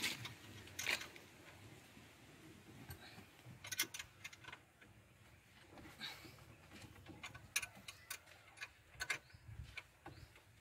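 Irregular light clicks and taps of hand tools and metal parts being handled while working in a car's engine bay, a few at a time with short gaps between.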